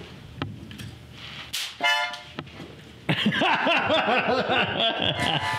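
Harmonica held in the mouth: a short chord about two seconds in, then from about three seconds a loud run of chords whose pitch wavers up and down. The notes come from the player breathing hard through the harmonica while an electric fly swatter shocks him.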